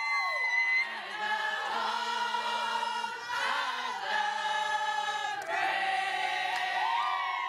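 A group of voices singing together in long held notes, with a whooping cheer right at the start.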